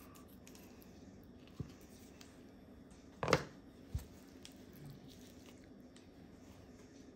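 Quiet handling of raw chicken, with a small snip of kitchen shears about a second and a half in. A little past three seconds the shears are set down on a plastic cutting board with a sharp clack, the loudest sound, followed just after by a soft low thump.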